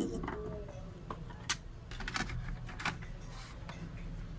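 Sharp clicks and taps of laptop parts being handled during a hard drive swap, about six at irregular intervals, over a steady low hum.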